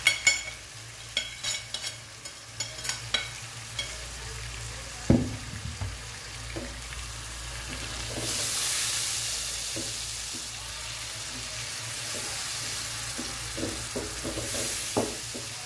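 Onion, tomato and ground-spice masala sizzling in a frying pan while a wooden spatula stirs it, scraping and knocking against the pan. Several knocks come in the first few seconds and a loud one about five seconds in. The sizzle swells around the middle and again near the end.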